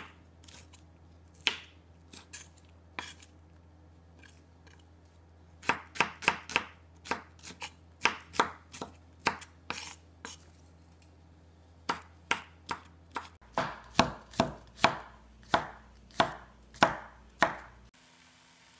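Kitchen knife chopping onion on a wooden cutting board: sharp strikes, scattered at first, then quicker runs of about two or three a second, stopping shortly before the end.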